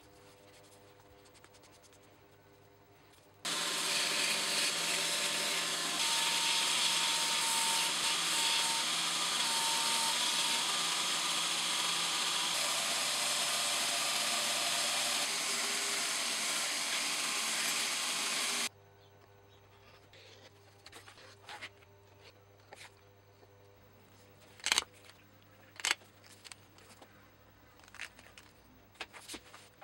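A narrow belt sander runs steadily while the edge of a leather sheath strap is ground against it, starting about three seconds in and cutting off abruptly a little past halfway. After that come scattered sharp clicks as a revolving leather hole punch snaps through the strap.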